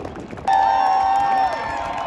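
A field of IndyCar twin-turbo V6 engines started and running, suddenly loud about half a second in, several engine notes at once with one dropping in pitch near the end, over a cheering crowd.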